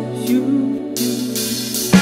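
Live cover band music: held chords with a note that slides up near the start, and a bright wash of sound coming in about a second in.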